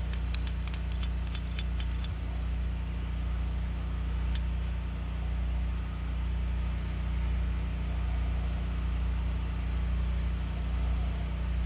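A quick run of small metallic clicks, about four a second for the first two seconds, then one more about four seconds in, from needle-nose pliers working a carburetor's throttle-shaft return spring to wind it tighter. A steady low hum runs underneath.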